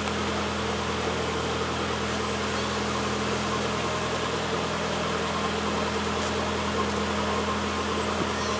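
A narrowboat's diesel engine running steadily as the boat motors slowly along the canal, a constant low drone.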